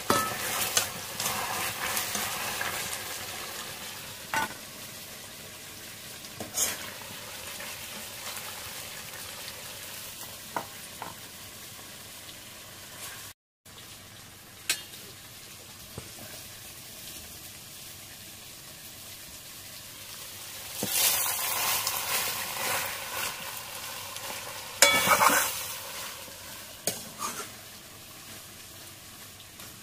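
Thick chicken kosha sizzling in a steel kadai as a steel ladle stirs and scoops it, with sharp clinks of the ladle on metal. Two louder spells of scraping and clatter come in the last third.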